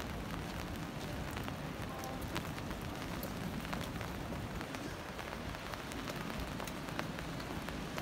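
Steady rain falling on a wet city street, with many scattered drop ticks.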